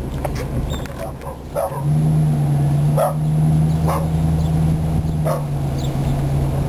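A small dog barking four times, about a second or so apart, over the steady low hum of the car's engine, which grows louder about two seconds in.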